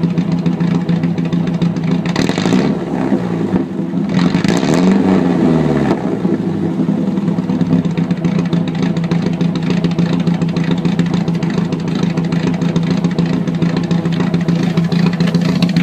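1992 Volvo 245's four-cylinder engine running with no exhaust system fitted at all. It is blipped twice, about two and about four seconds in, each time rising and falling in pitch, then idles steadily.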